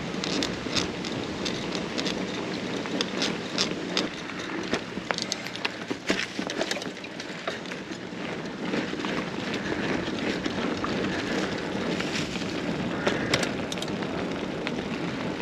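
Carrera Hellcat mountain bike rolling over a rough trail: tyre noise on the ground with frequent irregular clicks and rattles from the bike jolting over bumps.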